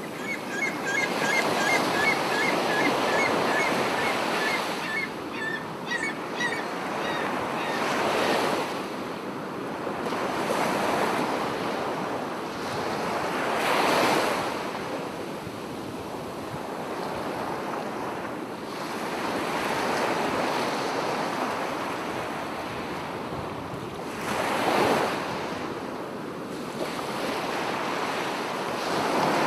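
Sea waves breaking and washing up a sandy beach: a steady surf that swells louder as bigger waves crash about eight, fourteen and twenty-five seconds in. A string of short, high chirps repeats a few times a second through the first seven seconds.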